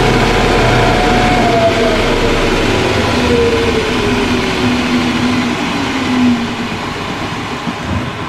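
Galaxy Super 2000 belt floor sander, fitted with a new 80-grit belt, running and then coasting down, its whine falling steadily in pitch as it slows. The belt is tracking evenly.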